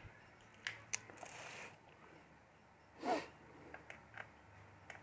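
Faint, scattered plastic clicks and a short scrape of a Lenovo ThinkPad Z61t laptop being handled as its adapter and battery are taken out, with a brief louder rustle or breath about three seconds in.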